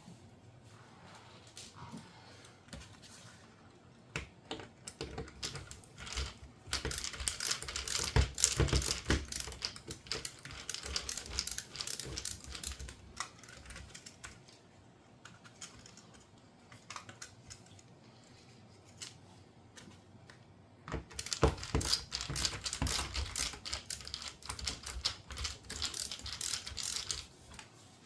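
Rapid clicking of a hand screwdriver backing out the screws around a dishwasher detergent dispenser, in two runs of several seconds each.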